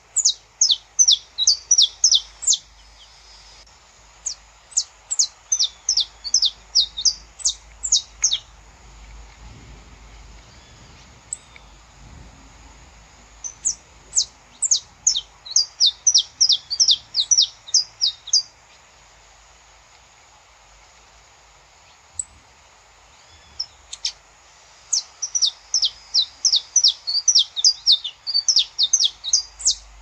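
Saffron finch singing: phrases of sharp, high chip notes, about four a second, each phrase a few seconds long. Four phrases, separated by pauses of several seconds.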